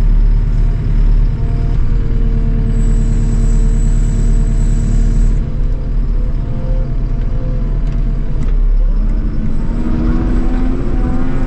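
Farm vehicle engine running steadily with a heavy low rumble. A thin high whine sounds for a couple of seconds about three seconds in, and the engine's pitch climbs near the end.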